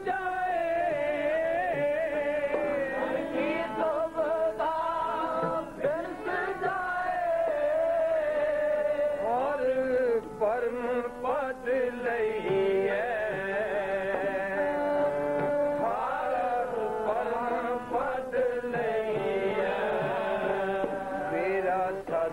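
Sikh kirtan: a man singing a gurbani hymn in a wavering, ornamented melody over steady held harmonium notes.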